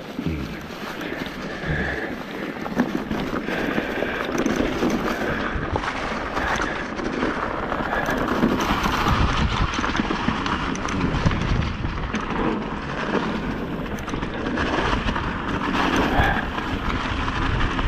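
Mountain bike riding down a trail over dry fallen leaves: the tyres crunch and rustle through the leaf litter, and the bike rattles and knocks over bumps all the way.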